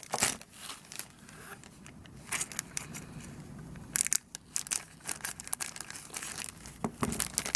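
Stiff, hard plastic packaging crinkling and crackling as it is cut and pulled open, with irregular sharp snaps and clicks.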